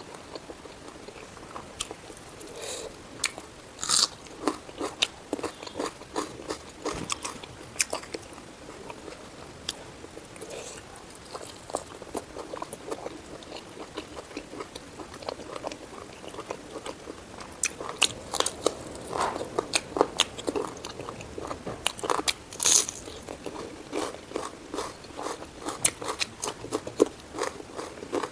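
Close-miked mukbang eating sounds: a person chewing pork curry with frequent wet mouth clicks and smacks at an uneven pace, the loudest about 4 seconds in and again near the end.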